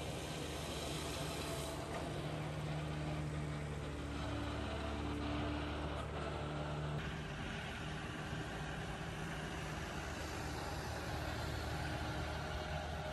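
Tractor engines running steadily: a John Deere pulling a trailed disc mower-conditioner cutting hay. The sound changes abruptly about seven seconds in.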